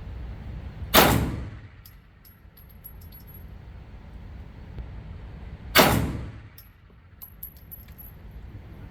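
Two 9mm pistol shots about five seconds apart, each ringing on in the range's echo. Light clinks follow each shot.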